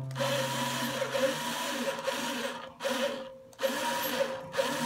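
A low string on a Martin DCPA5 acoustic guitar rings out and dies away about a second in. A whirring mechanical noise with a wavering hum follows and cuts out briefly a few times.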